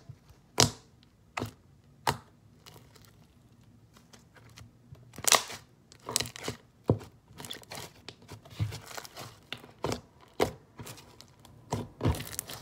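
Thick borax-activated glue slime being kneaded, stretched and pressed by hand on a tabletop: irregular sharp pops, clicks and tearing sounds as air pockets burst. A few loud pops come at first, then a quieter patch, and they come thicker from about five seconds in.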